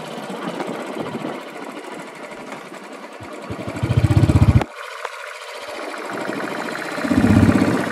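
Motorcycle engine running under way with a fast, even exhaust beat, mixed with road and wind noise. Two louder low surges come about four seconds in and again near the end.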